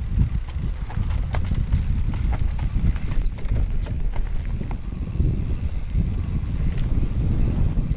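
Mountain bike rolling fast down a dirt singletrack, with wind rumbling on the camera's microphone and scattered clicks and rattles from the bike jolting over roots and stones.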